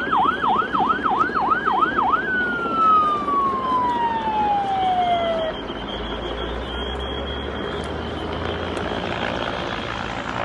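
Emergency-vehicle siren in a fast yelp, about three or four sweeps up and down a second, then switching to one long falling wail that winds down and stops about five seconds in. A steady background of outdoor noise runs under it and on after it.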